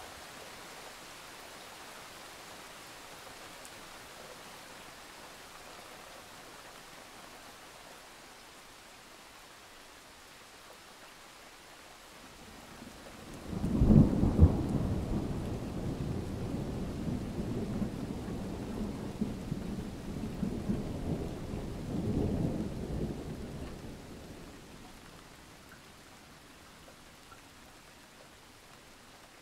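Steady hiss of rain, with a long low rumble of thunder that starts suddenly about halfway through, rolls in waves for several seconds and dies away.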